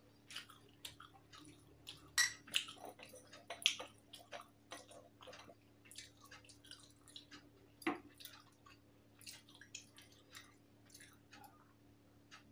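Close-up chewing of a mouthful of rice and curry: irregular soft wet smacks and small mouth clicks, a few louder ones about two, four and eight seconds in.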